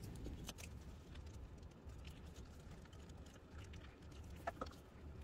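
Quiet hand-handling noise: scattered faint clicks and rustles of a vinyl strip and its double-sided tape backing being handled and pressed flat, with two sharper clicks about four and a half seconds in, over a low steady hum.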